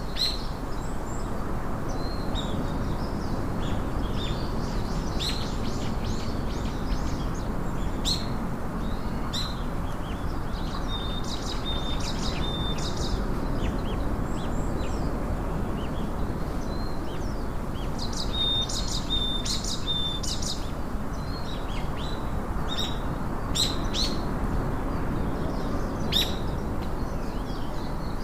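Birds chirping over a steady background noise, with short calls scattered throughout and a run of quick repeated notes about 11 seconds in and again about 18 seconds in.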